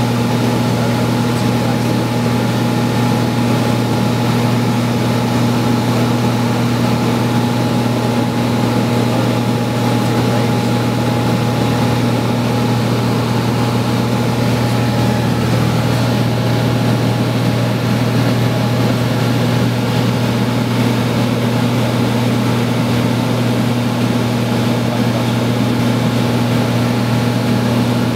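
Light propeller airplane's engine and propeller droning steadily in cruise, heard from inside the cabin, with a constant low hum and a fainter higher tone over a rushing noise.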